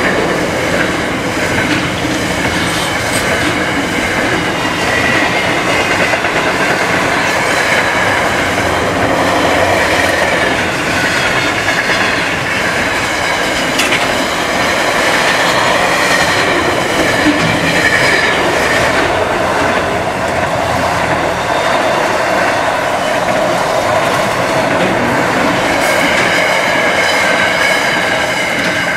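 Double-stacked container wagons of a freight train rolling past close by: a steady clatter of steel wheels on the rails, with wavering high wheel squeal on top.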